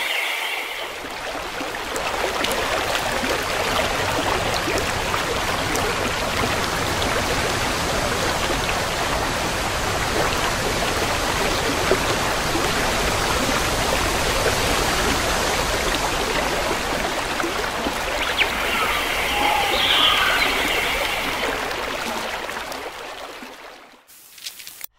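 Steady rush of flowing water, like a stream running below, with a brief higher-pitched call about three-quarters of the way through; it fades out near the end.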